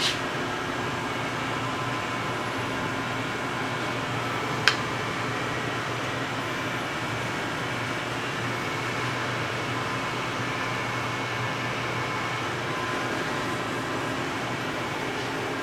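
Steady mechanical hum, like a fan or air conditioner running, with one sharp click a little under five seconds in.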